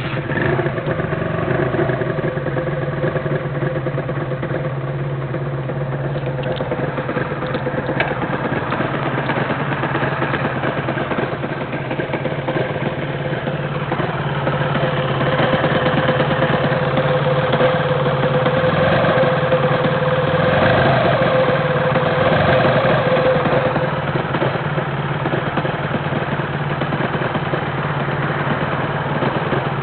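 Honda NSR250 (MC21) two-stroke V-twin motorcycle engine catching right at the start and then idling with a loud mechanical rattle. The owner traces the noise to the primary drive gear area, and it persists after the crankshaft was renewed and the transmission and primary drive and driven gears were swapped for used ones.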